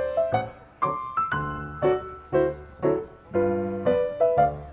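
Background piano music: a melody of separate struck notes, each fading after it is played.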